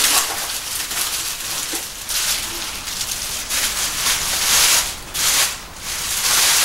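Clear plastic wrapping crinkling as it is handled, in several uneven bursts of rustling.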